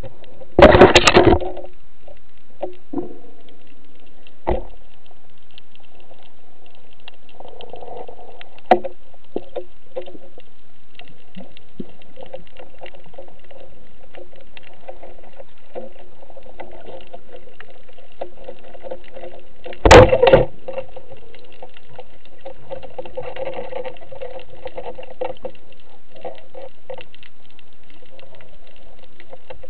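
Underwater ambience heard through a camera's waterproof housing: a steady hiss with faint crackling and scattered clicks. Two loud, sudden knocking noises break in, one about a second in and one about 20 seconds in.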